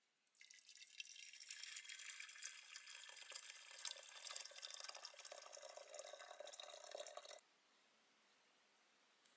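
A thin stream of hot water pouring into a glass teapot onto tea bags, splashing steadily, then stopping abruptly about seven seconds in.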